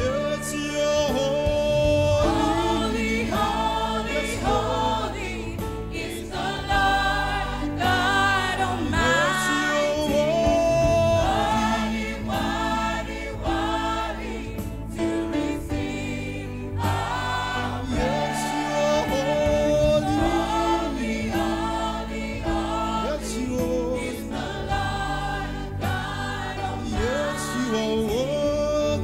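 Church choir singing a slow gospel worship song in full voice over a sustained instrumental backing, the sound swelling and easing phrase by phrase.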